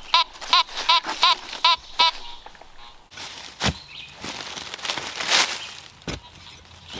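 Fisher F19 metal detector giving about six short, quick beeps as its coil is swept over a buried target, some of them rising and falling in pitch. After that come a couple of thumps and some scraping, like a digging tool going into soil.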